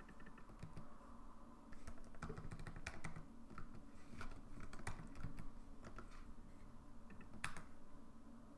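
Computer keyboard keys tapped in short irregular runs of faint clicks, with one sharper click near the end, over a faint steady hum.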